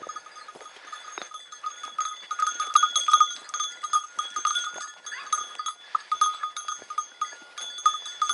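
Small metal bell on a running hunting dog's collar, jingling rapidly and unevenly with each stride, loudest about three seconds in.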